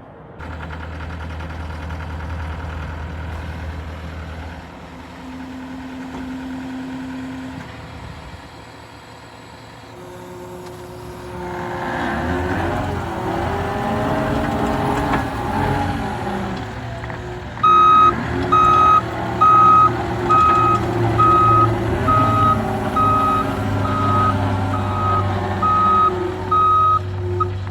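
John Deere 331G compact track loader's Yanmar turbo diesel running, its engine speed rising and varying about twelve seconds in. From about the middle on, its reverse alarm beeps loudly about once a second.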